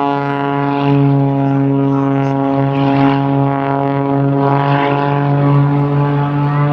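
Aerobatic plane's modified 400-horsepower Lycoming piston engine and propeller droning steadily at high power. The plane is hanging on the prop with no lift from the wings in a slow, nose-high descent.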